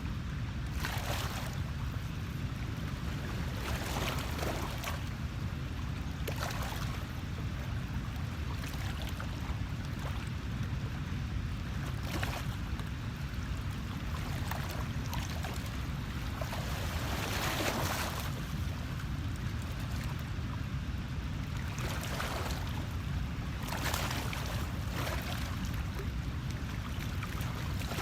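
Water washing and lapping in surges every few seconds over a steady low rumble.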